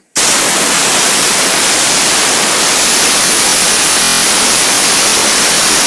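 Compressed air from an air compressor blasting out in one loud, steady hiss, aimed at a fidget spinner to spin it up. It starts sharply and cuts off abruptly near the end.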